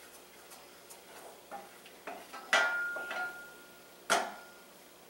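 Wooden spoon stirring garlic and melted butter in a small stainless saucepan: soft scraping, then two sharp knocks of the spoon against the pan about two and a half and four seconds in, the first leaving a brief metallic ring.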